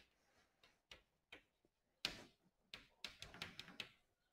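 Chalk faintly tapping and ticking on a blackboard as an equation is written: a handful of soft, separate ticks, mostly in the second half.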